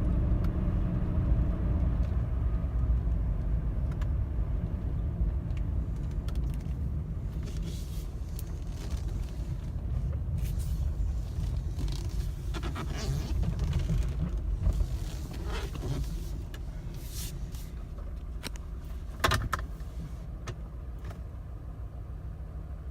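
Mercedes-Benz W124 engine and road noise heard from inside the cabin while driving, a steady low rumble that dies down over the stretch as the car eases off. The engine is running unusually loud, part of the rough running that the owner traced to a faulty engine wiring harness. A few light clicks and one sharper knock come late on.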